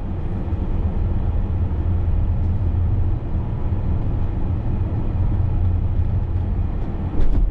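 Steady low rumble of engine and road noise inside a moving vehicle's cabin while driving, with a couple of brief knocks near the end.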